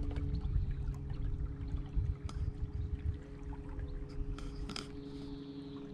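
Canoe under way on an electric trolling motor: a steady low motor hum with water lapping and splashing against the hull.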